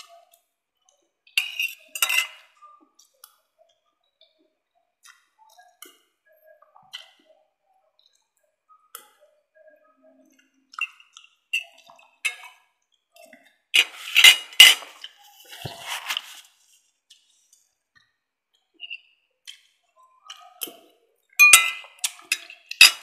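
Metal spoon and fork clinking and scraping against a ceramic plate and soup bowl while eating rice and chicken soup. The clinks come in short clusters: about two seconds in, around the middle and near the end.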